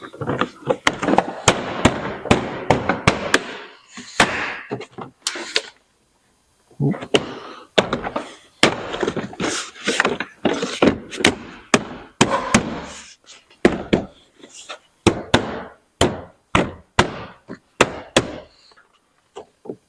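Plastic car door trim being handled and pressed into place: an irregular run of sharp clicks, knocks and thumps, with scraping and rubbing between them.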